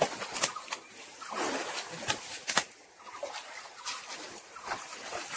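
Shallow stream water splashing and sloshing in short, irregular bursts as people wade through it and grope along the bottom by hand.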